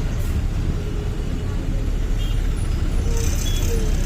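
City road traffic in a jam: vehicle engines running with a steady low rumble, and a brief hiss about three seconds in.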